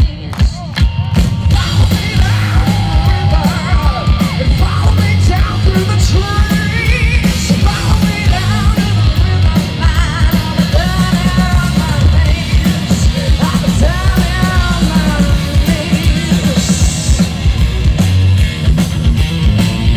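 Live rock band playing through a festival PA, heard from the crowd: a steady pounding beat alone at first, then the full band with guitars, bass and drums comes in about a second and a half in. A woman sings the lead vocal over it.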